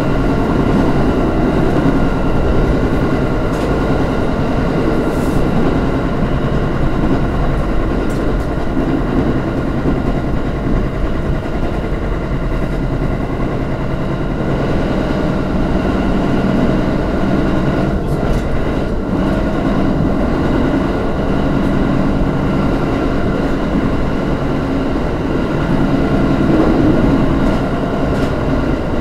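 Electric train running at speed, heard from inside the rear cab: a steady rumble of wheels on the rails with constant whining tones over it.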